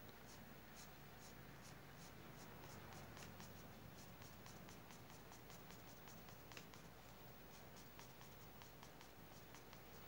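Faint scratching of a mechanical pencil's graphite on drawing paper in short, quick strokes, about four a second, as fine strands of hair are sketched in.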